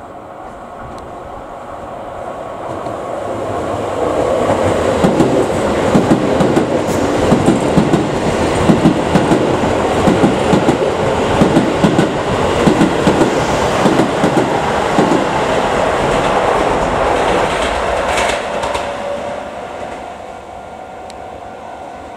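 Keisei 3000-series electric commuter train passing through a station at speed without stopping, its wheels clattering over the rail joints in a rapid run of clicks. The sound builds over the first few seconds, stays loud while the cars pass, and fades away in the last few seconds.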